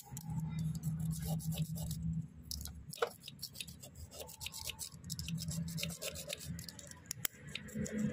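Small scraping and tapping clicks of a thin metal blade pressing and spreading epoxy putty into the gaps between a hub motor's magnets, with a low hum coming and going behind.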